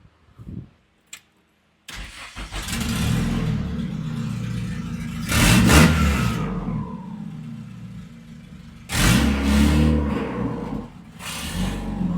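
Turbocharged Honda B20 four-cylinder engine starting up for the first time after its build, catching about two seconds in and then revved twice, the revs rising and falling back to a rough idle.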